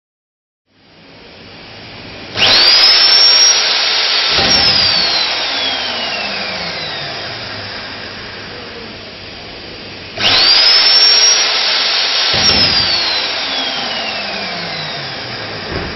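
Nitto Kohki Atra Ace magnetic drill's motor, started twice. Each time it whines quickly up to speed, runs about two seconds, then cuts out and winds down with a slowly falling whine. This is the lateral-movement safety cut-out stopping the drill and feed motor while the magnet stays on.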